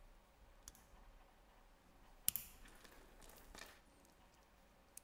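Stainless steel watch bracelet and case clicking faintly as the bracelet is fitted and handled: one sharp metallic click about two seconds in, then a few softer clicks and rustles.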